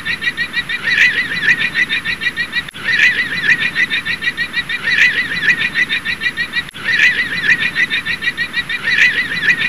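Llama calling: a high, honking call made of quick wavering pulses, swelling again about every two seconds.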